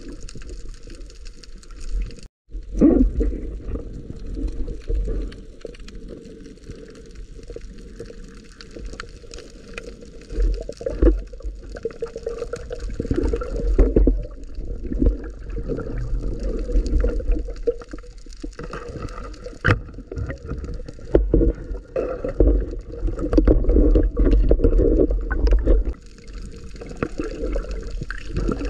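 Water sloshing and gurgling, with scattered knocks and a brief dropout about two seconds in.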